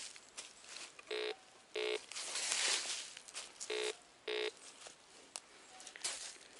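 Metal detector giving four short beeps of one steady mid-pitched tone, in two pairs about two and a half seconds apart, as the search coil is swept back and forth over a metal target in the ground. Rustling of leaves and undergrowth between the beeps.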